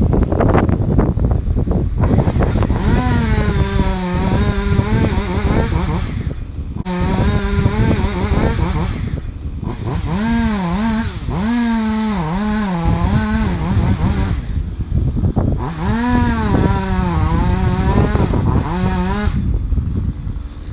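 Small two-stroke chainsaw running at full throttle while cutting. Its high engine note dips and recovers again and again as the chain bites, and it drops back briefly when the throttle is let off a few times.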